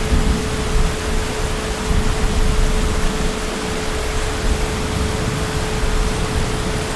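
Heavy rain falling as a steady, even hiss, with a low rumble of distant thunder that eases off over the first few seconds. A faint steady hum sits under the rain throughout.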